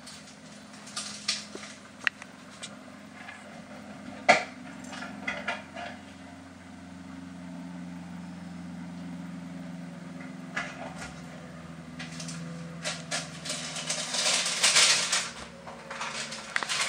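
Low steady hum with scattered clicks and light knocks, which crowd together near the end.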